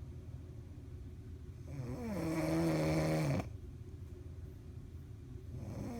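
A woman snoring in her sleep: one long, pitched snore about two seconds in that dips in pitch and then holds before cutting off, with quieter breathing around it. The next snore begins near the end.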